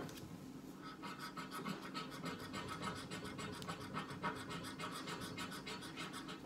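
Scratch-off lottery ticket being scratched with a small metal charm: quick, rapid scraping strokes, several a second, as the coating is rubbed off.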